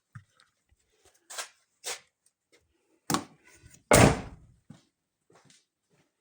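Handling noises: a few scattered knocks and clicks, with one heavier thud about four seconds in. No engine running.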